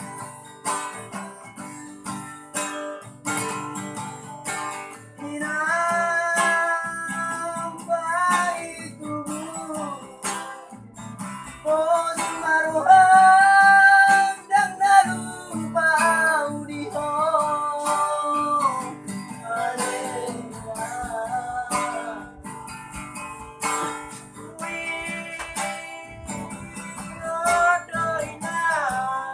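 Acoustic guitar strummed and picked as accompaniment to a sung Batak song, with a voice singing long, held melodic lines from about five seconds in, loudest near the middle.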